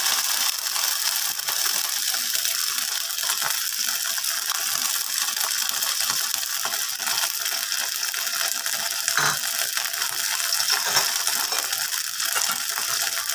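Hot oil sizzling and crackling steadily in a wok where chopped shallots, garlic and ginger are frying.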